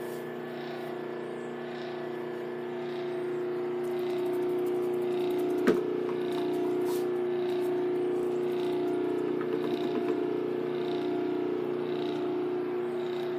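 Homemade ball-pitching machine running: its old high-speed motor hums steadily while spinning a bike wheel, and once, near the middle, it flings a ball out with a sharp smack.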